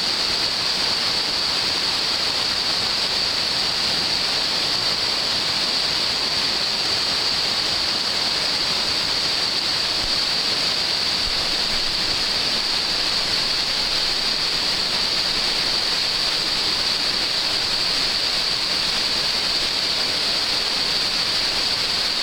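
Rushing water of waterfall rapids, a steady, unbroken rush.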